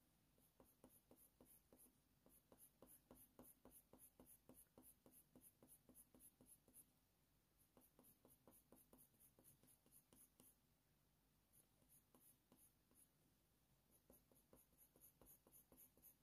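Very faint rapid short strokes of a Faber-Castell Polychromos coloured pencil on smooth hot-press watercolour paper, flicking at about four or five strokes a second. The strokes come in runs, with a pause of a few seconds and a final run near the end.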